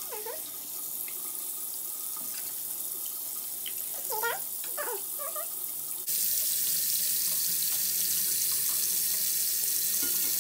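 Tap water running steadily into a bathroom sink basin, turning abruptly louder about six seconds in. A few short, high vocal sounds from a young child come a little before that.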